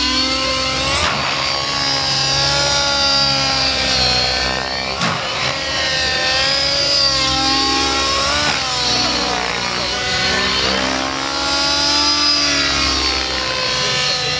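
Nitro-powered RC helicopter in flight: its glow engine and rotor blades whine loudly. The pitch keeps rising and falling, with a few quick sweeps as it goes through manoeuvres.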